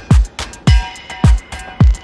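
Background music with a steady electronic beat: a deep kick drum that drops in pitch lands about twice a second, with ticking hi-hats and faint synth tones between the hits.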